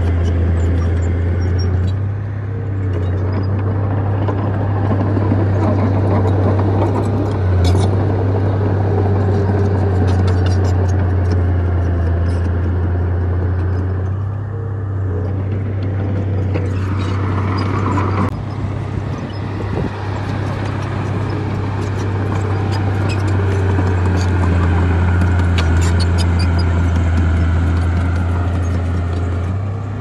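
Heavy diesel engine of earth-moving machinery running with a steady deep hum, easing off briefly a few times, with scattered light clanks over it.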